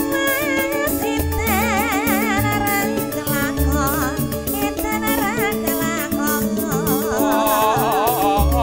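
Javanese campursari koplo music played live: a woman sings into a microphone with a wide, wavering vibrato over held bass notes and a fast, steady drum beat.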